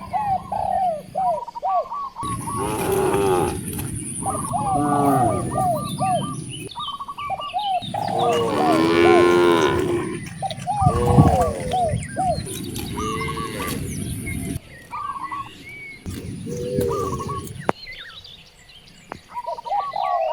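Several cows mooing, long pitched calls that overlap, the longest about eight seconds in. The uploader takes the mooing for hunger. Small birds chirp over and over throughout.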